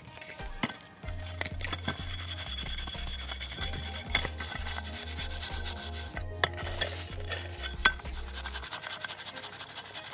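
Wire scouring pad rubbed hard back and forth over the burnt base of a metal cooking pot, scouring off burnt-on residue. The rasping strokes start about a second in and come fast, about four a second, with a few sharper clicks among them.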